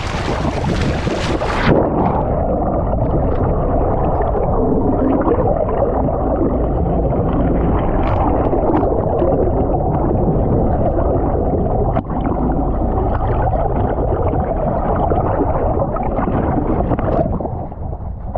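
Wind and sea noise on the microphone, then about two seconds in the camera goes under water and the sound turns muffled: a loud, low gurgling rumble of water rushing past the camera's housing.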